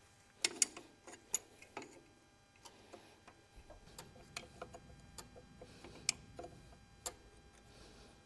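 Hand tools working on metal fasteners: several sharp metallic clinks, then a run of lighter irregular ticks as bolts are worked loose.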